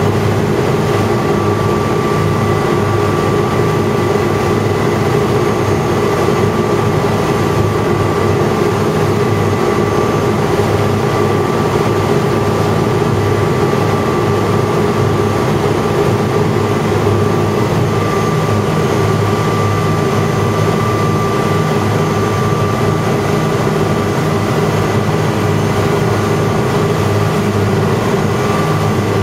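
A powerboat's engine running steadily at a cruising speed of about 20 knots, with the rush of its wake churning behind the stern.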